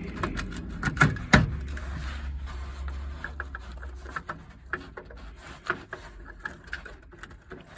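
Handling noise as a power cable is pushed and worked through a hole: rubbing and scraping, with two sharp knocks about a second in, then a string of small irregular ticks and taps.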